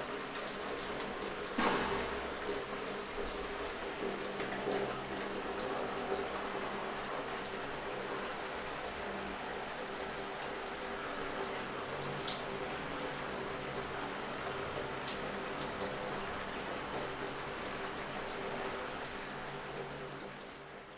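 Shower water running steadily and splashing on tiles and wet clothing, with scattered drips and a few louder splashes. It fades out near the end.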